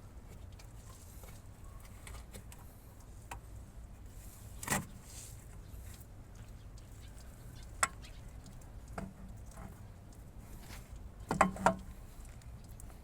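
Scattered light knocks and clicks, a few seconds apart, ending in a quick double knock near the end, over a low steady hum.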